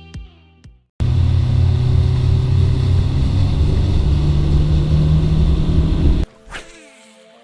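Boat motor running steadily under way, with a rushing noise over a low hum. It cuts in suddenly about a second in and stops abruptly about a second before the end.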